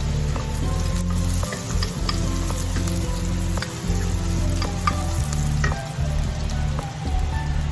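Chopped jalapeño, garlic and ginger sizzling in hot oil in a pan as they are stirred, with scattered clicks of the spoon against the pan.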